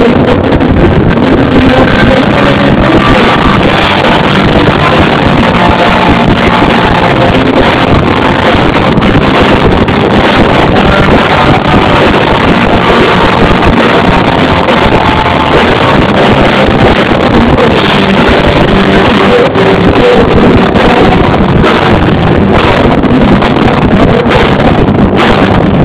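Live rock band playing, very loud and dense, with held notes over a steady wash of drums and guitars.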